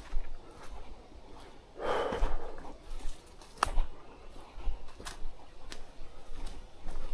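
A hiker's hard, breathy exhale about two seconds in, between scattered sharp clicks and snaps of steps on the trail.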